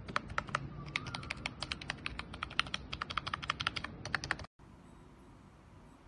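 Keys of a MOFii Biscuit wireless numeric keypad with round keycaps being pressed in quick succession, several clicks a second. The tapping cuts off abruptly about four and a half seconds in.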